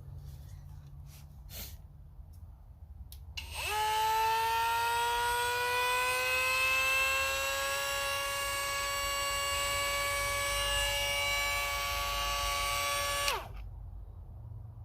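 Cordless brushless die grinder with a 1/4-inch collet, run with no load. A few seconds in, its motor spins up into a high whine that climbs in pitch, then holds steady for about ten seconds. Near the end it is switched off and the whine drops away quickly.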